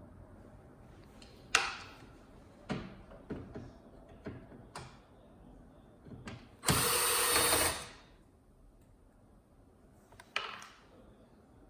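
A cordless drill or power screwdriver runs once for about a second, backing out a screw from the TV's casing. Around it come sharp clicks and light knocks of tools and plastic parts being handled.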